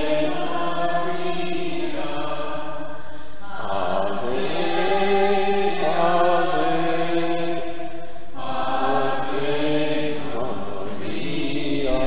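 Slow sung chant or hymn by a man's voice, holding long notes in phrases of about three to four seconds with short breaths between them.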